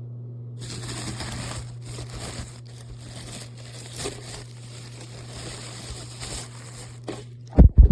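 Plastic packaging crinkling and rustling as it is handled and pulled off, with small clicks, then a couple of loud dull thumps near the end.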